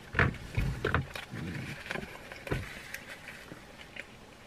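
Eating and handling sounds from a paper-wrapped sub sandwich: a few sudden rustles and knocks in the first three seconds as it is handled and bitten into, then fainter chewing and small ticks.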